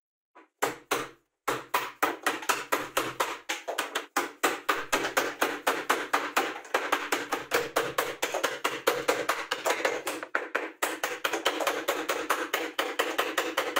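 Wood chisel struck in quick, steady taps by a hammer, about five or six blows a second, chopping out the waste between saw cuts in laminated chipboard. The taps pause briefly about a second in and again near the end.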